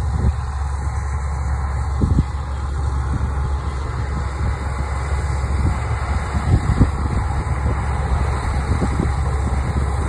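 Combine harvester and tractor with grain cart running while harvesting corn: a steady low machinery rumble, with a few brief low thumps.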